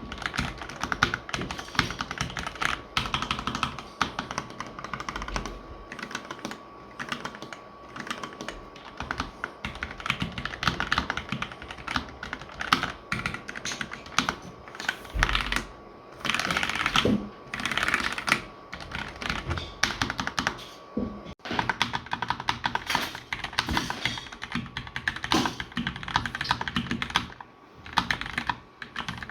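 Fast typing on a Kemove K68 mechanical keyboard: a dense, continuous clatter of keystrokes.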